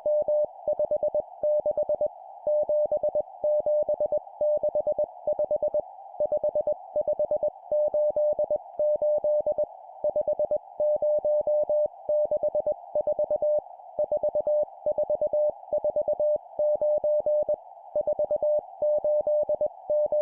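Morse code (CW) sent at 20 words per minute as a single-pitch beep keyed rapidly on and off, in short groups separated by brief pauses, with a steady hiss behind it.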